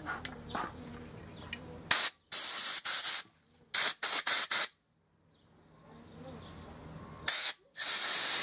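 Compressed-air blow gun blasting short bursts of air through a freshly drilled sandblast gun to clear out the metal chips. The bursts come in groups: a run of hissing blasts about two seconds in, several short ones around four seconds, then two near the end, the last about a second long.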